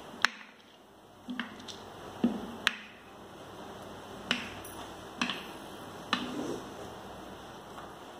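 Plastic RO pre-filter housing bowl and its spun cartridge being handled: about eight sharp, irregularly spaced clicks and taps of hard plastic.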